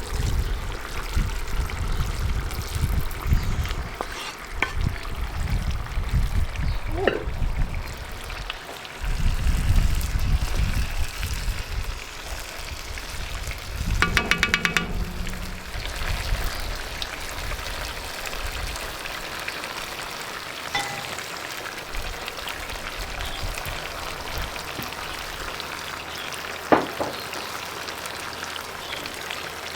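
Food sizzling in a cast iron potjie over the fire, a steady hiss, with rumbling handling noise and knocks through the first half and a brief squeak about halfway.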